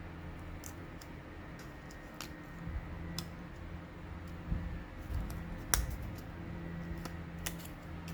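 Scissors snipping paper in a few separate sharp clicks, with small sounds of paper being handled, over a steady low hum.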